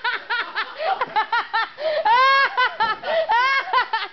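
A person laughing hard in quick repeated ha-ha-has, breaking into a longer high-pitched squeal of laughter about two seconds in.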